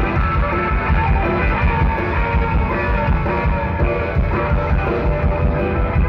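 A live rockabilly band playing loud, with electric guitar to the fore over a steady drum and bass beat.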